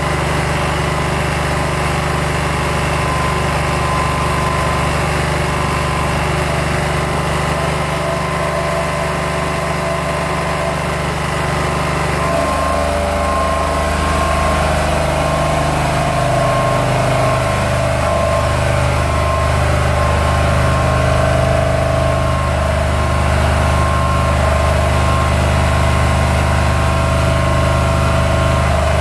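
Old 6 kW diesel generator running steadily while it powers an inverter stick welder. For the first twelve seconds or so, the arc of a 3.2 mm electrode crackles on top of the engine; then the arc stops, and the generator's note shifts as the welding load comes off.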